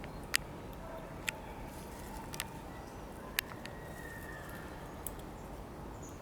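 About five sharp short clicks or cracks, roughly a second apart and uneven, over a steady low outdoor rumble, with a few faint thin whistling tones.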